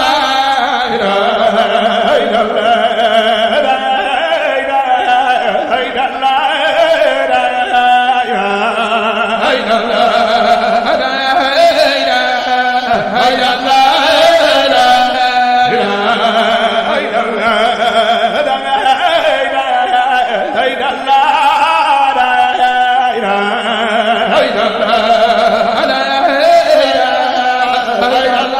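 A man's solo voice singing a devotional chant, with long, ornamented melodic lines, over sustained backing notes that change every few seconds.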